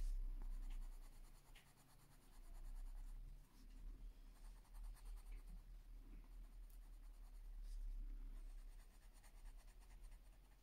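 Coloured pencil rubbing faintly on paper in short, uneven shading strokes as a flower petal is filled in, over a low steady hum.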